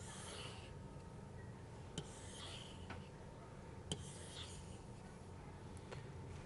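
Faint scratching strokes of a stylus drawn across a drawing tablet, three in turn as straight lines are drawn, with a few sharp clicks of the pen tapping down and lifting.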